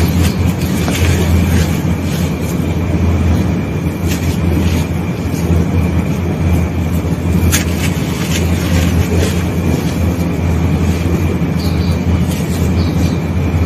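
Hands scraping and crumbling damp, gritty sand-cement, grains crunching and trickling, with one sharper snap about halfway through. A steady low hum runs underneath and is the loudest thing heard.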